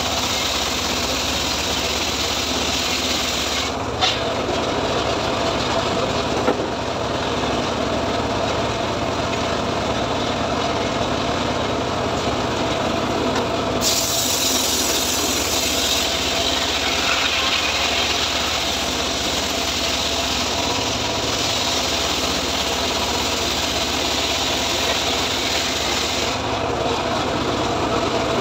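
Homemade engine-driven circular table saw ripping a teak log lengthwise, the blade cutting steadily through the wood over the running engine. The cut turns brighter and hissier for a couple of seconds about halfway through, with two short knocks a few seconds in.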